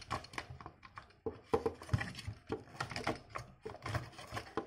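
Hard plastic parts of a 1:18-scale transforming toy mech being handled and fitted together into tank mode: irregular clicks, clacks and light knocks.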